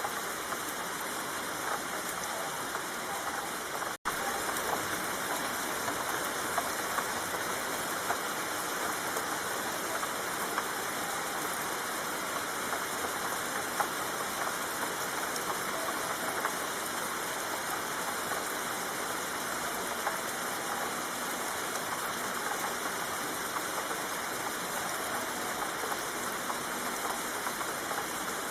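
Steady rainfall: an even hiss with scattered drop ticks. It cuts out for an instant about four seconds in.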